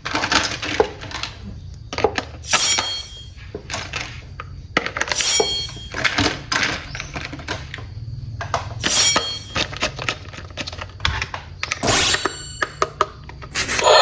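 Toys being handled: an irregular run of clicks, knocks and clatters of small hard pieces, a few with a brief metallic-sounding ring, over a low steady hum.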